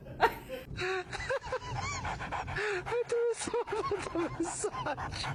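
A quick run of short pitched vocal cries, several a second, each rising and falling in pitch.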